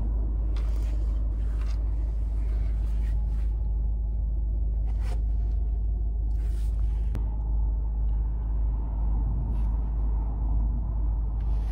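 Steady low rumble of a car heard from inside the cabin, with a few short faint clicks on top.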